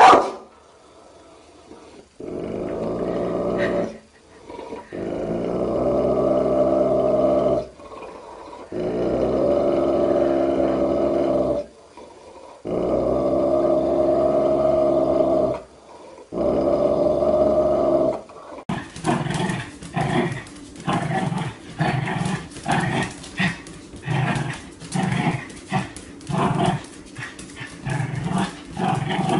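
A large dog growling at its own reflection in a mirror: five long, drawn-out growls of two to three seconds each with short pauses between them. After a cut, a small dog gives quick short barks, about two a second.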